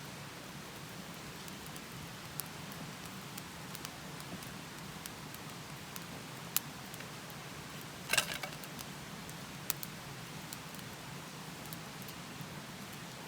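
Wood campfire crackling: scattered sharp pops over a steady low hiss, with a quick cluster of crackles about eight seconds in.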